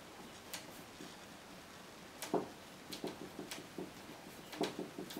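Paint being dabbed and pressed by hand onto a stretched acrylic canvas: soft irregular taps, sparse at first, with the loudest about two and a half seconds in, then a quicker run of taps.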